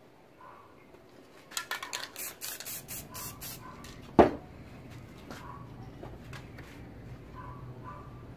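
Aerosol spray paint can rattling in a quick run of sharp strokes as it is shaken, about six or seven a second. It is followed a little after the middle by a single sharp knock, the loudest sound.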